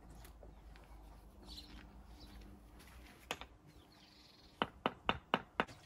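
A single sharp knock, then five quick sharp taps about a quarter second apart near the end, over faint bird chirps.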